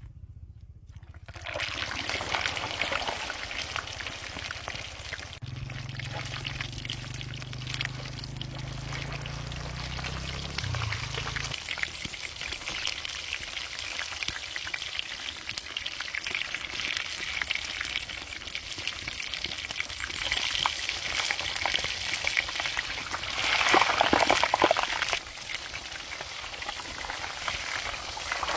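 Chicken frying in hot oil, a dense sizzle full of small crackles that swells loudest a little before the end. A steady low hum runs beneath it for the first dozen seconds, then stops.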